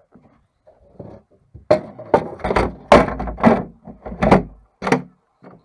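An irregular run of loud knocks and thuds, about ten in three seconds, beginning a little under two seconds in.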